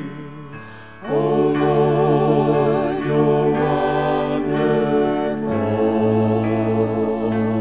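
A hymn sung by a group of voices, with long held notes and vibrato. A fuller, louder chord comes in about a second in.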